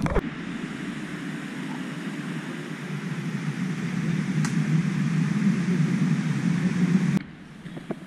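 Shallow rocky rain-forest stream flowing over stones: a steady rushing of water that grows a little louder, then cuts off suddenly about seven seconds in.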